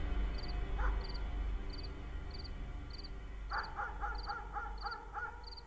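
Film soundtrack sound design: a steady deep drone with a soft tick about every two-thirds of a second. From about three and a half seconds in, an animal gives a rapid series of short cries, about three a second, and the sound fades out at the end.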